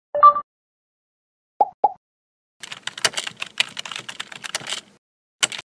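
Intro sound effects: a short two-note tone, two quick blips, then about two seconds of rapid computer-keyboard typing clicks, and a single sharp key click near the end.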